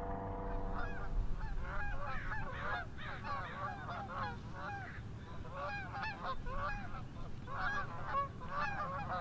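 A flock of geese honking: many short, overlapping calls that start about a second in and keep going.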